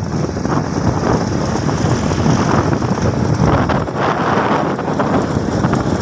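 Wind buffeting the microphone during a motorcycle ride, over a steady rumble of the engine and the tyres on a rough dirt road.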